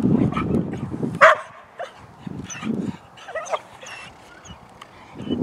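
Belgian Malinois puppy barking while worked up during bite-work agitation: one sharp bark about a second in, then shorter yips and whines.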